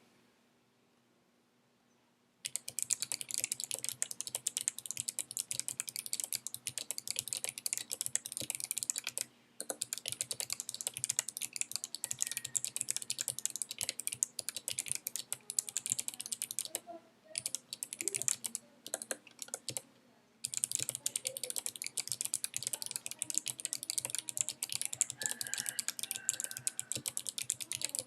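Fast typing on an Anne Pro 2 mechanical keyboard with clicky Kailh Box White switches fitted with thick O-rings: crisp clicks from the click bars and upstrokes, while the rubber damps the bottom-out. It starts about two and a half seconds in and runs as a dense patter with a few short pauses.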